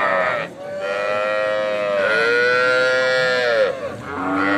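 Calves bawling with long drawn-out moos: one call ends just after the start, a second lasts about three seconds, and a third begins near the end. Each call holds a steady pitch and dips at its close.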